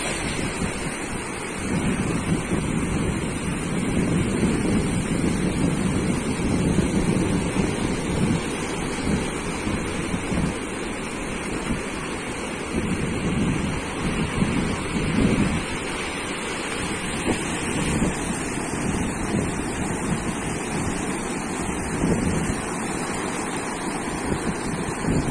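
Ocean surf breaking and washing up a sandy beach, a continuous rushing that swells and eases, with wind buffeting the microphone in low rumbles.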